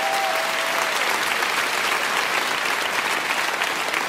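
Theatre audience applauding steadily after a punchline, a dense even clapping with a brief held voice-like tone in the first second.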